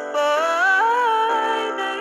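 Music: a female singer carrying a wordless, gliding vocal line over sustained backing accompaniment.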